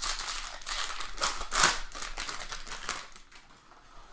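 Crinkling and rustling of foil trading-card pack wrappers and cards being handled, busy for about three seconds with the loudest crinkle around the middle, then quieter.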